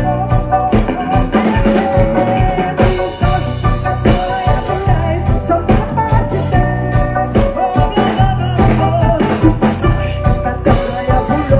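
Live rock band playing loud, full music, with a steady drum kit beat, bass, and sustained melody lines over them.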